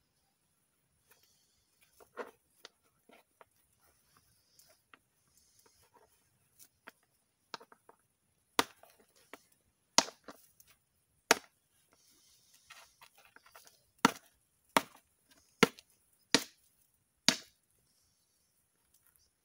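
Flint being knapped: sharp clicking strikes of the striker on the stone, light and scattered at first, then about eight loud cracks roughly a second apart in the second half.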